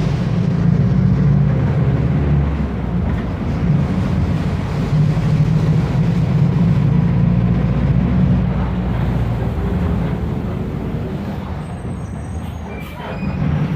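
Diesel engine of a Mercedes-Benz OF 1519 city bus running steadily as the bus drives, a deep drone that eases off about ten seconds in. A few faint high squeaks come near the end.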